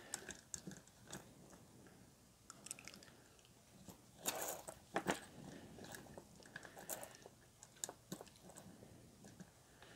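Faint, scattered clicks and light knocks as a chronograph watch with a steel bracelet is turned and fitted into a plastic watch case holder.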